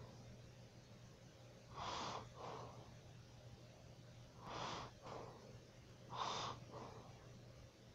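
A sleeping person snoring and breathing heavily: three faint, noisy breaths, each followed at once by a shorter, fainter one, over a steady low hum.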